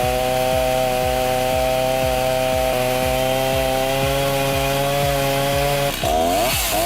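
Chainsaw held at high revs with a steady pitch. Near the end the pitch sags and climbs back as the chain bites into the wood.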